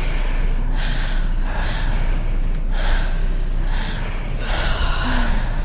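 Heavy human breathing: a quick run of loud, rough breaths in and out, about one a second.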